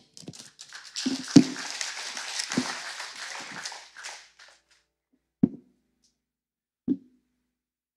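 Sheets of paper rustling and shuffling close to the pulpit microphone for about four seconds, with a few soft knocks among them. Two short dull thumps follow a little later, as a book and papers are handled at the lectern.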